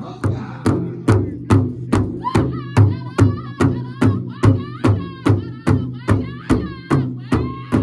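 Powwow big drum, a large hide-covered drum struck in unison by a group of singers with drumsticks, keeping a steady beat of a little over two strikes a second. About two seconds in, a high wavering singing voice comes in over the beat.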